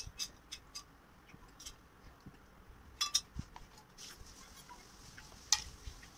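Fingers squeezing and mixing soft rice on a plate by hand: a scatter of small wet, sticky clicks, with a sharper cluster about three seconds in and one loud click near the end.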